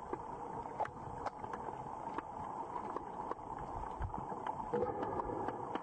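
Muffled river water heard through a GoPro's housing, a steady wash of noise with many small scattered clicks and ticks.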